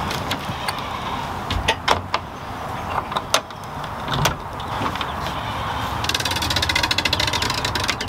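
Latch and plywood door of a wooden chick coop being worked open: a string of sharp clicks and knocks over the first few seconds. About six seconds in, a fast, even rattling buzz starts and keeps going.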